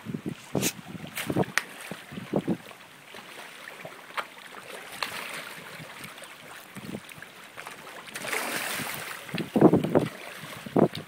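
Pond water splashing and slapping in short, irregular splashes as fish churn at the surface, with wind on the microphone. A longer rush of noise comes about eight seconds in, followed by a cluster of heavier splashes near the end.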